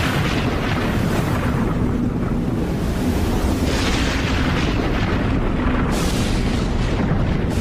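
Cinematic intro sound effect: a continuous deep, explosion-like rumble with rushing whoosh swells near the start, about four seconds in, and again about six seconds in.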